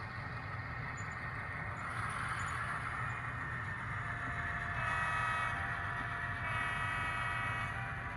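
A model diesel locomotive's sound decoder, with a steady engine rumble underneath, sounds a multi-tone horn twice: a blast starting about five seconds in and a second one about a second and a half later.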